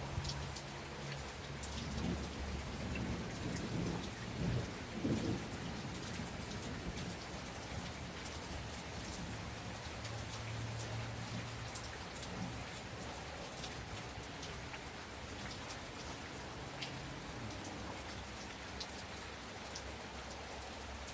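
Steady rain hiss mixed with the crackle of a wood fire, with scattered sharp pops throughout. A low rumble swells and fades during the first few seconds.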